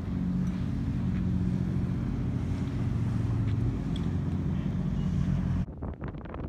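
A boat's engine drones steadily and low. About five and a half seconds in it cuts off sharply and gives way to wind buffeting the microphone.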